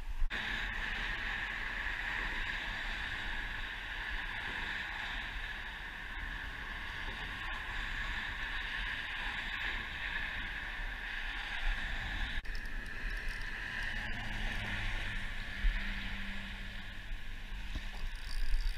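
Steady outdoor rush of wind against the microphone and traffic noise, with a low engine hum coming up about two-thirds of the way through.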